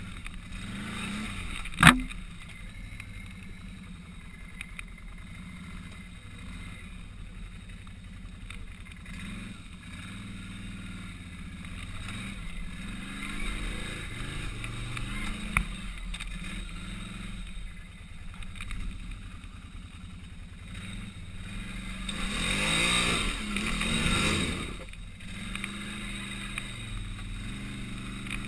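Can-Am ATV engine running at low revs, its pitch rising and falling in repeated short throttle blips as the quad picks its way over rough, wooded ground. A single sharp knock about two seconds in, and a longer, louder rev about three quarters of the way through.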